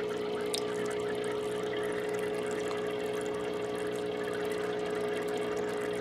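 Aquarium air pump humming steadily while air bubbles up through the water from a sponge filter.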